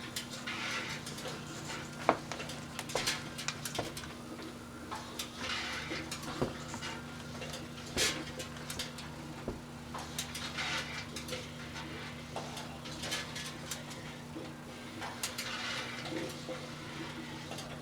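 Microwave ovens humming while Christmas lights inside them arc, giving irregular crackling and sharp snaps; the sharpest snaps come about two and eight seconds in.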